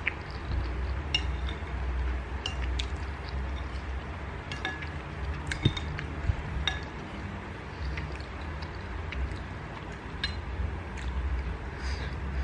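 Metal fork and spoon clinking and scraping against a ceramic plate as instant noodles are twirled and lifted, a dozen or so light, scattered clinks with a short ring, over a low steady hum.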